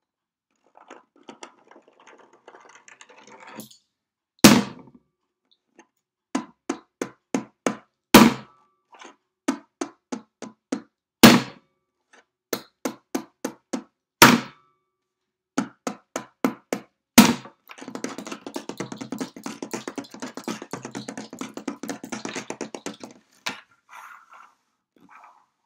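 Hand knocking and drumming on a wooden tabletop. It starts with a soft rubbing, then a loud thump about every three seconds with quick runs of lighter taps between. Near the end comes a rapid patter of fingertip drumming lasting about five seconds.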